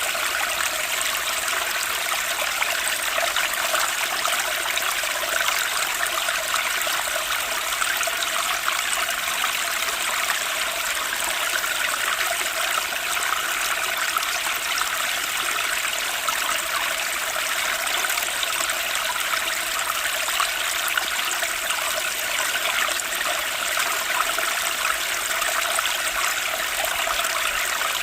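Flowing water, a steady, unbroken rush and trickle.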